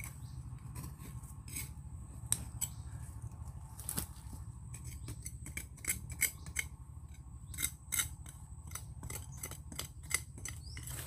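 Digging into an earthworm cast mound in soil to find worms for bait: irregular scrapes and sharp clicks, a few louder strikes among them.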